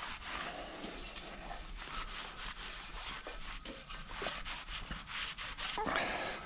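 Irregular rubbing and scraping along the inside of a bare spoked motorcycle wheel rim, as the spoke nipples are felt over for anything sticking up.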